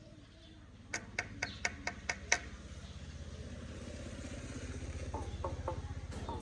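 Common myna giving a quick run of six sharp clicking calls, then a few softer calls near the end. Underneath, a vehicle engine hums and grows steadily louder.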